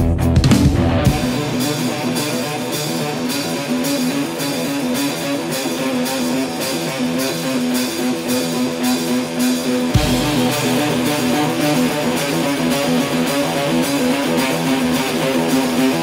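Rock music with strummed electric guitar over a steady rhythm, an instrumental stretch of the song without vocals. The bass drops out about a second in and comes back in about ten seconds in.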